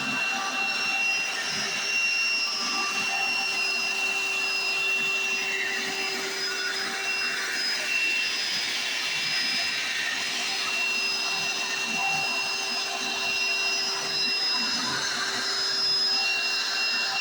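Hoover Encore Supreme direct-air soft-bag upright vacuum running steadily, its motor giving a constant whine over a rushing airflow.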